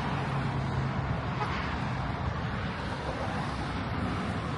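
Steady outdoor noise of wind buffeting the microphone over passing road traffic, with a low steady hum that stops about a second in.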